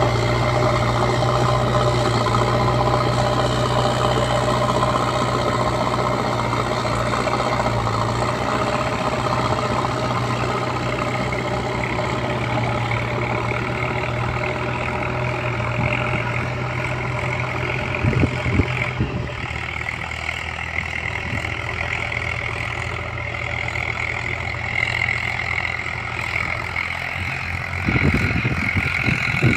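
Diesel engine of a JCB backhoe loader running steadily, its hum easing a little past the middle, with a few sharp knocks about two-thirds through and again near the end.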